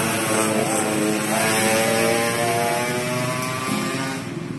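A motor vehicle's engine passing on the street, its pitch drifting slowly, fading away near the end.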